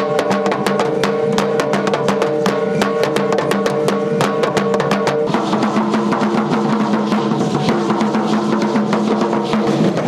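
Aztec dance drumming: upright huehuetl drums beaten in a fast, driving rhythm, with the dancers' ankle seed-pod rattles (ayoyotes) shaking along. A steady held tone sounds underneath and shifts in pitch about five seconds in.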